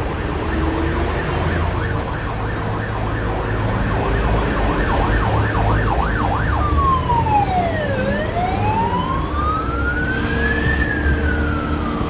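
Siren of a Hong Kong Fire Services Department Mercedes-Benz ambulance on an emergency response: a fast yelp that switches just past halfway to a slow wail, falling, rising and then falling again. Steady traffic and engine noise runs underneath.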